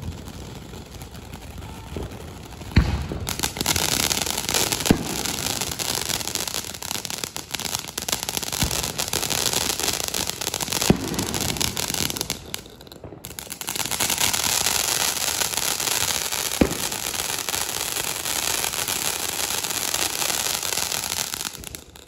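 Ground fountain firework spraying sparks: a steady hissing crackle that grows loud a few seconds in after a sharp pop, with a few more sharp pops scattered through. The spray drops away briefly about halfway through, then comes back before cutting off at the end.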